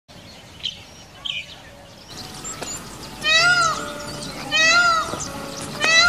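Indian peafowl calling: three loud, wailing, cat-like cries about a second and a half apart, each rising and then falling in pitch, starting about three seconds in.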